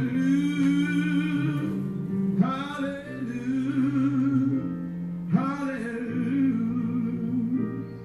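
Background music: a man singing three long, drawn-out phrases with a wavering vibrato, over steady instrumental accompaniment.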